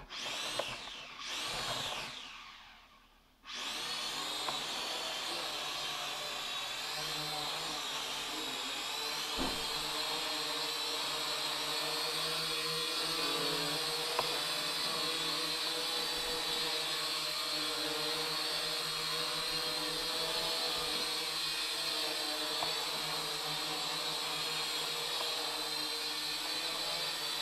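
Small toy quadcopter's electric rotors whirring with a high, steady whine. Its motors waver and cut out briefly about two seconds in, then start again and run evenly.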